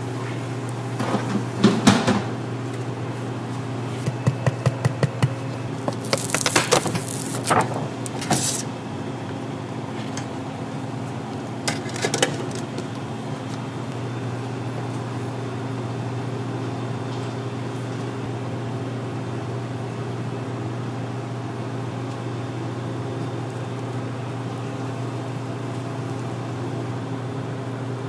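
Steady low electrical hum of running kitchen equipment. Over the first dozen seconds come quick clicks and harsh scrapes of utensils on cookware, the loudest bursts about six to eight seconds in.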